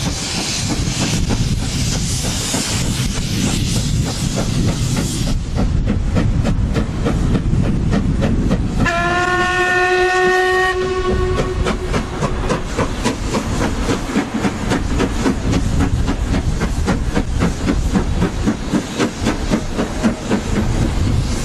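LMS Black Five 4-6-0 steam locomotive 45407 passing with its train: a steam hiss at first, then a fast, even beat as it runs. About nine seconds in it sounds its whistle once, a low note held for about two and a half seconds.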